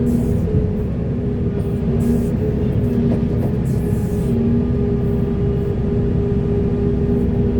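Large hydraulic excavator working: its diesel engine drones steadily under load, with a whine from the hydraulics that drops out and returns. A few short hissy noises come in the first half.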